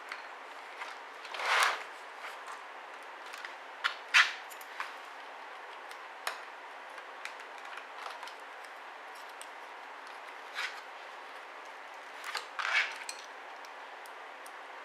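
Handling noises from a ThinkPad R61 laptop being taken apart to remove its hard drive: scattered light clicks and three short scrapes, about a second and a half in, about four seconds in, and near the end, over a steady hiss.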